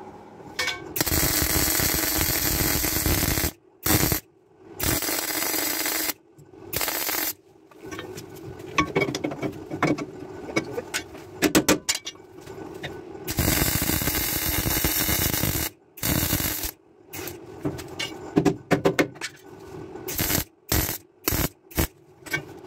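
MIG welder seam welding steel chassis sections, the arc running in repeated stop-start bursts from under a second to several seconds long, with short silent pauses between runs. A steady hum runs beneath the bursts.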